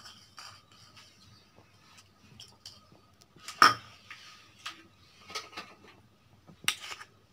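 Kitchen utensils clinking and knocking against dishes as garlic is added to a bowl of coarsely ground onion: scattered light clicks, with sharper knocks about three and a half and nearly seven seconds in.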